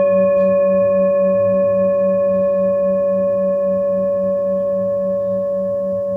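Singing bowl ringing after a strike: one long, many-toned ring that fades slowly, its low hum wavering in a steady pulse.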